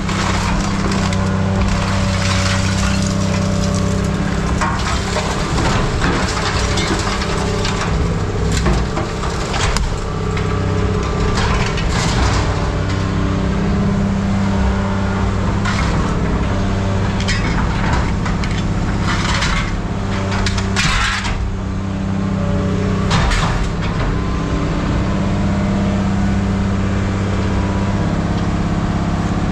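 A heavy machine's engine running steadily while scrap metal is handled, with irregular crunching, cracking and clanking impacts of metal throughout.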